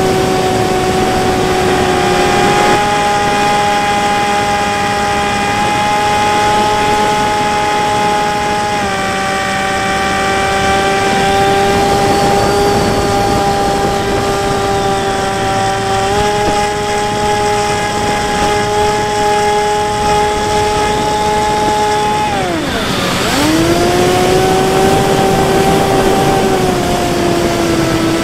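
Brushless electric motor and pusher propeller of a Bixler 3 RC plane, heard from on board: a steady whine over a hiss of rushing air that steps up and down in pitch with throttle changes. A little over 20 seconds in it dips sharply and climbs back.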